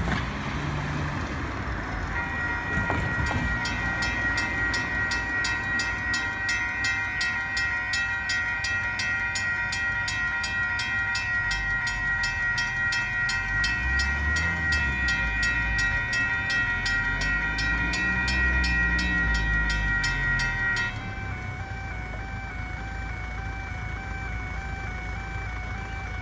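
Level crossing alarm bells ringing, a rapid clanging of about three strokes a second over a steady electronic tone, starting about two seconds in. From about halfway through, the low whine of a Waratah electric train's traction motors rises and falls underneath as it comes into the station. The bells cut off suddenly about three-quarters of the way through, leaving only a fainter pulsing tone.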